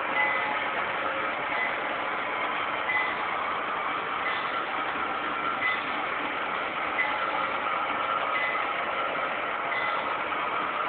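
Model double-stack freight train rolling past close by: a steady running noise of wheels on track mixed with the sound-equipped locomotive's diesel engine sound, with a short high click about every second and a half.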